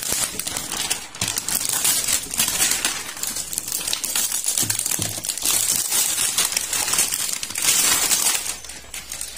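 Clear plastic wrapping film crinkling and crackling as it is pulled and peeled off a plastic toolbox, loudest a little before the end.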